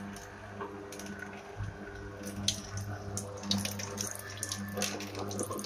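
Kuvings C7000 slow masticating juicer running with a steady low motor hum, its auger crushing whole oranges with scattered short cracks and crackles.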